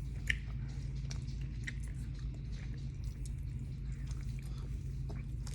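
Someone chewing candy: faint, scattered mouth clicks and smacks over a steady low hum.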